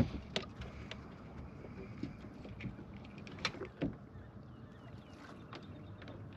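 Irregular clicks and knocks of rod, reel and gear being handled in a small fishing boat while a trout is played, the sharpest right at the start, over a low steady rumble.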